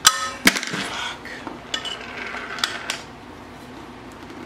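Sharp metallic clinks and knocks, several in the first three seconds, from an inline skate frame and its bolt hardware being worked by hand against the boot while trying to mount the frame on a stripped bolt.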